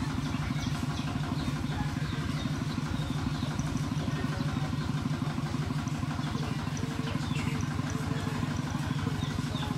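A steady low rumble of an idling engine with a fast, even pulse, with faint short high chirps over it.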